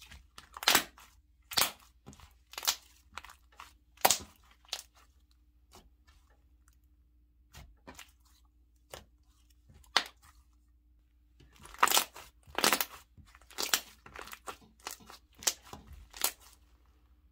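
Thick, creamy white chubby base slime being stretched, folded and squeezed by hand, giving off irregular sticky clicks and pops, with a dense run of them about twelve seconds in.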